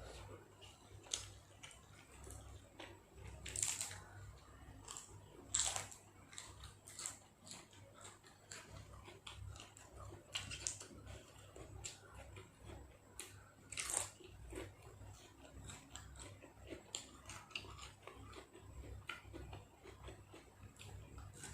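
A person chewing and biting crunchy food close to the microphone: steady small chewing clicks with a few louder crunches, typical of bites of raw vegetables eaten with spicy beef salad.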